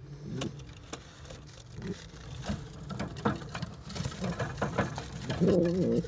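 Domestic pigeons shuffling in a nest box, with scattered light taps, scratches and feather rustles. Near the end comes a loud pigeon coo.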